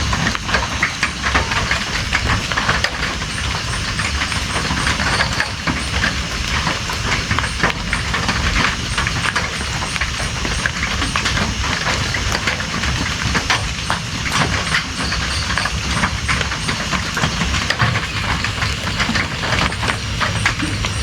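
Steady rain, a dense patter of many small drop hits over a low rumble.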